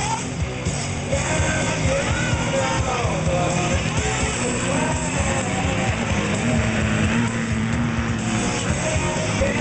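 Rock song with a sung vocal over a steady beat.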